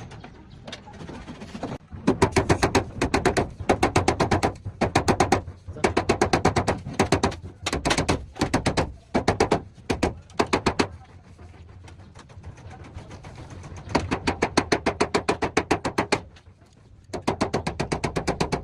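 Rapid hammering on car body sheet metal: fast, even strikes, about eight to ten a second, in runs of a second or so with short pauses between.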